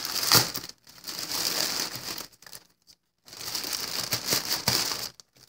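Grey plastic poly mailer bag crinkling and rustling in uneven bursts as hands pull it open, with a brief pause about three seconds in.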